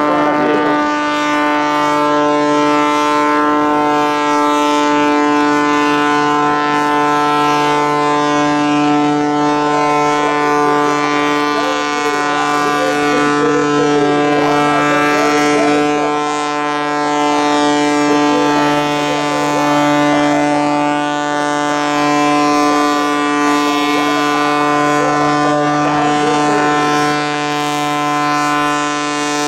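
Aerobatic biplane's piston engine and propeller running at steady high power, a loud drone that holds one pitch throughout.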